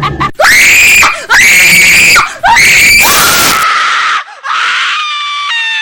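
Horror scream sound effect: three loud, high-pitched screams in quick succession. The last one trails into a long held cry, and near the end a steady pitched tone comes in and steps lower.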